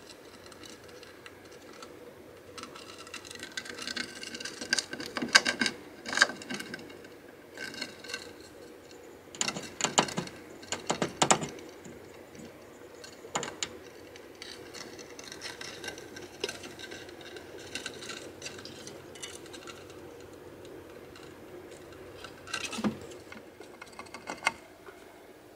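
Djungarian hamster gnawing and scrabbling at its enclosure: irregular bursts of small clicks and scrapes, the busiest clusters about five and ten seconds in.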